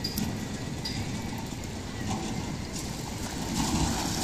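Water sloshing around men wading through a shallow river, with a louder swish and splash near the end as cast nets are swung and thrown.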